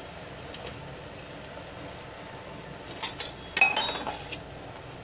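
A metal spoon clinking against an aluminium pressure cooker pot. There is a faint click about half a second in, then a quick cluster of sharp, ringing clinks about three seconds in.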